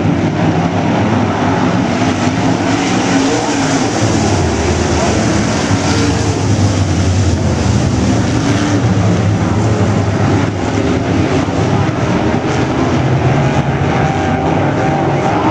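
A field of IMCA Modified dirt-track race cars running together at racing speed, their V8 engines blending into one loud, steady din, the engine note rising and falling as the cars go through the turns.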